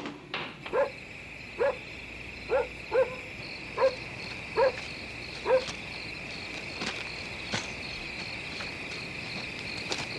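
A dog barking about seven times in the first six seconds, over a steady high-pitched hum.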